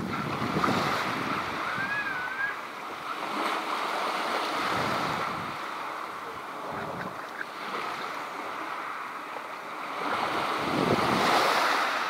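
Small waves washing in over a pebble shore of a calm sea, swelling and easing every few seconds, with wind buffeting the microphone.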